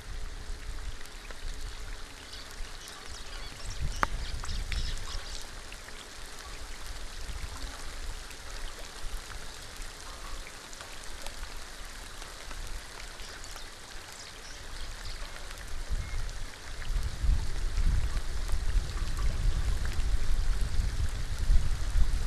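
Steady rain falling on a pond's surface, a continuous hiss of drops on water. A low rumble swells under it in the last several seconds, and there is a single sharp tick about four seconds in.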